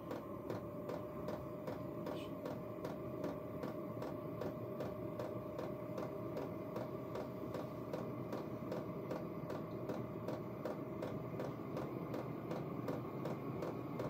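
Chinese diesel air heater running just after ignition: a steady jet-like whoosh from the burner and blower with a thin steady whine, while its fuel pump ticks rapidly, about four times a second, during the start-up sequence.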